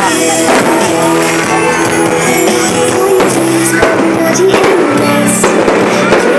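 Loud pop-rock song with a singer, played over a sound system as the soundtrack of a pyromusical fireworks show.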